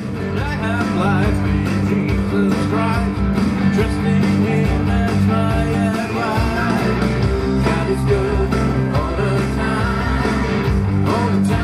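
Loud rock music with electric guitar and a singing voice over a full backing track, starting at once and running steadily.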